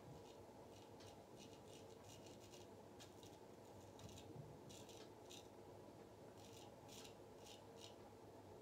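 Dubl Duck Goldedge straight razor scraping through lathered stubble on the neck: a series of short, faint, raspy strokes, about a dozen of them.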